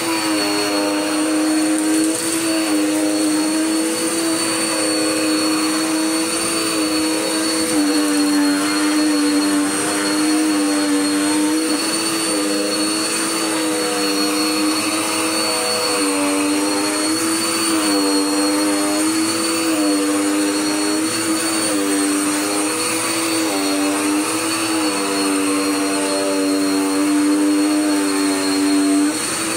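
Dirt Devil Power Max vacuum cleaner running steadily, a loud motor whine whose pitch dips and recovers slightly every second or two as the load on it changes.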